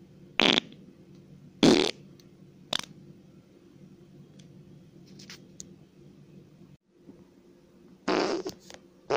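Fart noises in short separate bursts: two about a second apart near the start, a brief one near three seconds in, then a longer one near the end followed closely by a short one. A faint steady low hum runs underneath.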